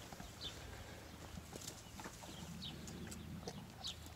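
Faint sounds of Jersey calves drinking milk from buckets: scattered small slurps and knocks, with a few short high chirps.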